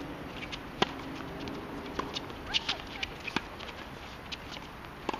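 Tennis ball struck by rackets in a rally: a serve about a second in, the loudest hit, then three more sharp pops roughly a second and a half apart.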